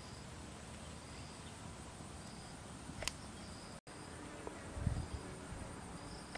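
Outdoor ambience of insects chirping: short high chirps repeating about once a second over a faint steady hiss and a thin high hum. A sharp click about three seconds in and a soft low thump about five seconds in.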